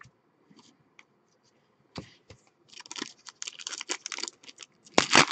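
Shiny foil wrapper of a trading-card pack crinkling and tearing as it is opened by hand: a click about two seconds in, then a quick run of crackles.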